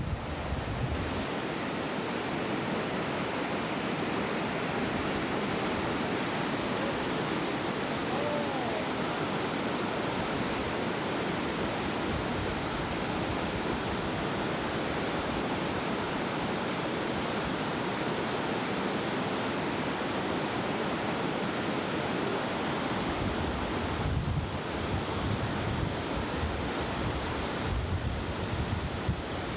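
Steady rushing roar of the Yellowstone River's waterfall and rapids in the canyon. Wind buffets the microphone at the very start and again over the last several seconds.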